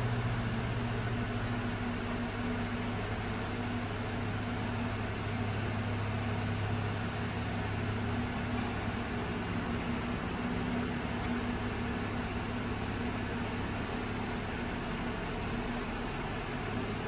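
Steady mechanical hum: a low droning tone with a fainter higher one over an even hiss, the low tone dropping slightly in pitch about two seconds in.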